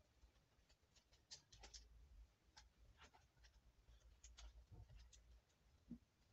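Near silence, with faint scattered clicks and taps from a ring light on a tripod stand being handled and adjusted.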